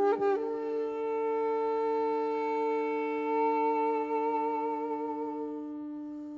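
Background music: a woodwind plays a quick rising phrase, then holds one long note with vibrato over a steady drone. The held note fades near the end.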